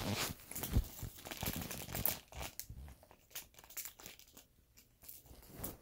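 A small child's fingers crinkling and tearing at a thin plastic toy wrapper as it is pulled open. The crackles come irregularly, busiest over the first two and a half seconds and thinning out after that.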